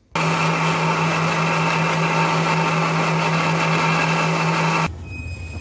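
Electric countertop blender running at a steady speed, puréeing fruit and milk into a smoothie, with a constant motor hum under the noise of the blades; it starts just after the beginning and cuts off abruptly near the end.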